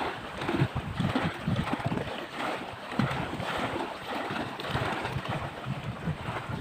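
Wind gusting on the microphone, with irregular low buffeting over a steady rush of sea and surf.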